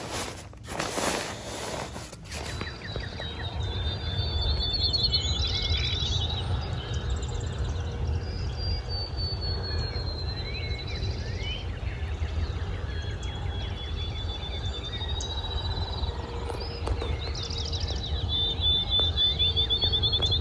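Songbird singing in the woods, a high thin song with a trill repeated every few seconds, over a steady low rumble. Rustling handling noise runs for the first couple of seconds.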